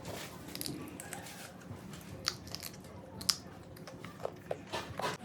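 Eating sounds: a child biting and chewing crunchy food, with several short, sharp crunches, the loudest about three seconds in and a few more close together near the end.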